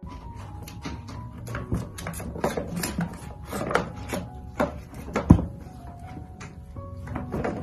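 Plastic ball rattling around the channel of a round plastic cat track toy as a kitten bats and pounces on it: a run of quick knocks and clatters, with one sharp, loud knock a little past five seconds in.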